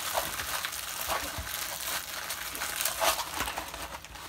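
Clear plastic packaging crinkling and rustling in irregular bursts as hands handle and roll a plastic-wrapped canvas.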